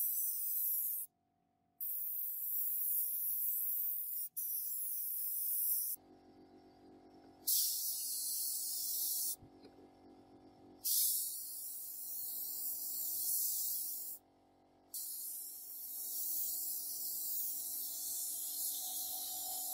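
INGCO suction-feed air spray gun spraying paint: a strong, high-pitched hiss of compressed air and atomised paint. It starts and stops abruptly several times as the trigger is pulled and released between passes.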